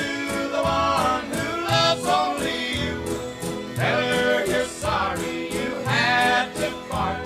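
Instrumental passage of a 1950s country record: plucked string instruments and a melody line over a steady beat of about two strokes a second.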